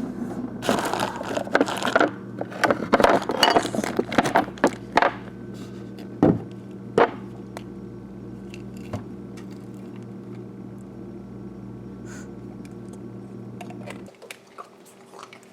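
Refrigerator being rummaged through: a few seconds of rattling and clinking as containers are moved about, then two sharper knocks, followed by a steady low hum.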